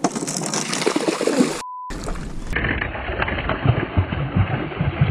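Hooked smallmouth bass thrashing and splashing at the surface beside the boat, with rustling and knocking from gear handled close to the microphone. About a second and a half in, the sound cuts out for a moment behind a brief steady beep.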